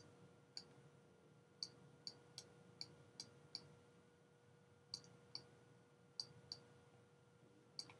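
Faint, sharp computer mouse clicks, about a dozen in irregular runs with a pause in the middle, over a faint steady electrical hum.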